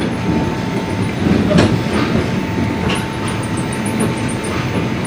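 Russian long-distance passenger train running, its wheels rumbling and clacking on the rails as heard inside a carriage, with a faint steady whine. Two sharp knocks sound in the middle.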